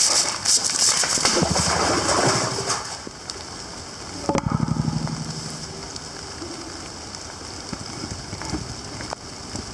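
A heavy concrete lid is dragged and set down onto a concrete well casing, making a loud, rough grinding scrape about four seconds in. Before it there is rustling and knocking, and steady rain patters throughout.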